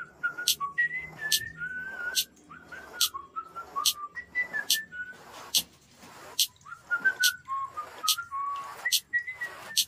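Short high-pitched chirping notes, several a second and wavering in pitch, with a sharp high click recurring about every three-quarters of a second.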